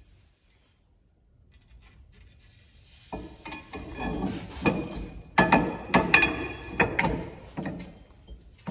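Steel axle shaft being slid back into a GM 10-bolt rear axle housing: metal scraping and rubbing, then several clunks as it goes home.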